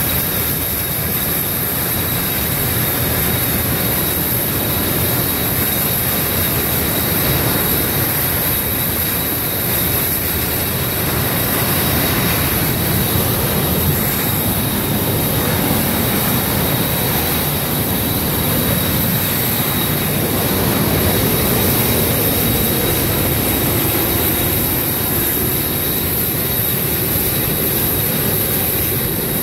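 Steam blasting out of the street from a burst underground steam line after a steam explosion: a loud, steady, jet-like rush that does not let up.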